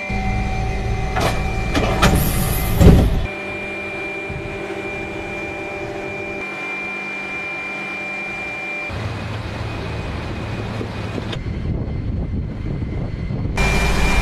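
Shipboard machinery and the OSA-M twin-arm missile launcher's drives running with a steady high whine and low hum, with clattering knocks and one loud thump in the first three seconds. A much louder rushing noise starts shortly before the end.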